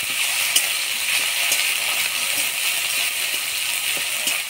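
Ground spice pastes (cumin, ginger, coriander and chilli) frying in hot oil with chopped tomato, a steady sizzle, with light scattered taps of a spatula stirring the masala.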